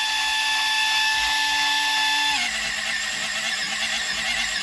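Electric pencil sharpener motor whining steadily, then dropping in pitch and turning into a rougher grinding a little over halfway through as it slows under the load of a pencil being sharpened.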